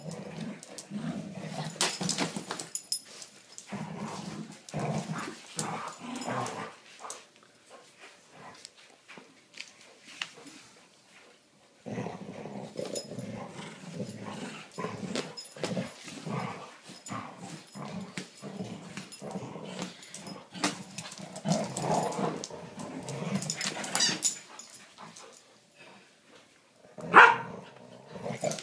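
Two Doberman pinschers growling in rough, irregular bouts as they tug at a blanket, with a quieter lull of a few seconds partway through and a short loud outburst near the end.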